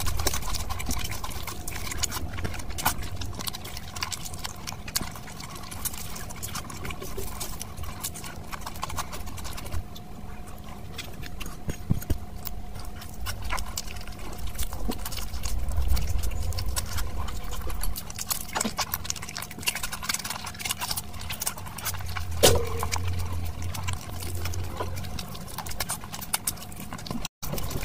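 Close-miked eating sounds: wet chewing and smacking of oily mutton curry and rice, with many short sharp clicks, and squelching as the rice is mixed by hand.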